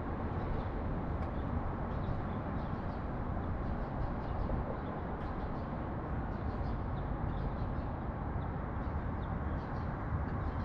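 Steady low rumble of distant city traffic, with faint, scattered short chirps from sparrows throughout.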